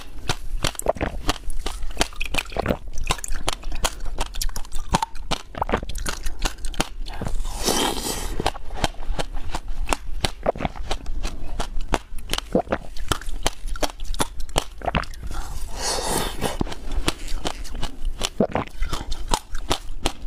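Close-miked chewing and crunching of frozen passion-fruit ice: a dense run of sharp crackles and snaps, with louder crunches about eight and sixteen seconds in.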